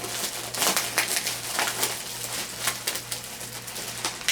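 Plastic bags and packaging rustling and crinkling as they are handled and opened, in a run of irregular crackling strokes.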